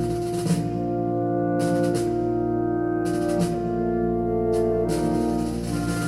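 Orchestral music with sustained brass notes, played back through a hi-fi system of a Kenwood DP-1050 CD player, Marantz amplifier and Grundig loudspeakers.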